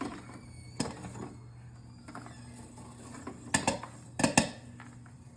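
A pot of stovetop popcorn near the end of popping: a few scattered sharp pops and knocks, one about a second in and two quick clusters near the end, over a steady low hum.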